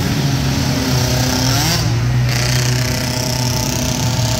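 Several small 50-90cc youth quad engines running together as the ATVs race around a dirt track. About two seconds in, one engine rises and then falls in pitch.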